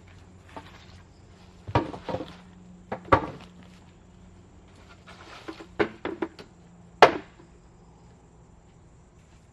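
Wood being struck in bushcraft work: about half a dozen sharp knocks at uneven intervals, two of them louder than the rest.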